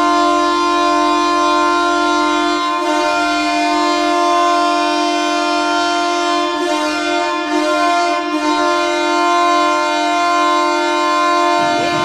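Ottawa Senators' arena goal horn sounding one long, steady blast at a single pitch, cutting off just before the end.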